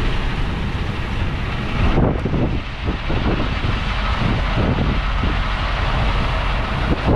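Strong wind gusting against a parked semi truck: a continuous heavy rush with a deep rumble, surging with a stronger gust about two seconds in. The gusts are around 35 to 40 mph, strong enough to rock the truck.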